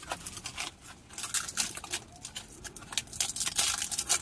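Dry sal leaves crackling and tearing as the stitched layers of a leaf bowl are pulled apart by hand. It is an irregular run of sharp crackles that comes thickest near the end.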